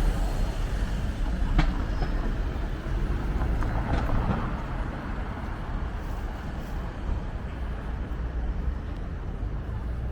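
Low rumble of a passing vehicle that slowly fades, with two short sharp clicks.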